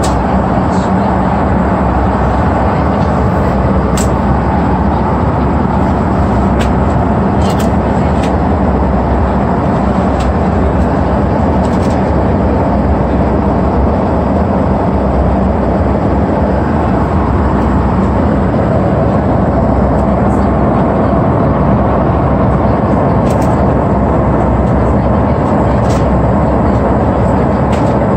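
Steady engine and airflow noise inside the cabin of an Airbus A330 airliner, an even, unchanging drone with a few faint ticks and rattles.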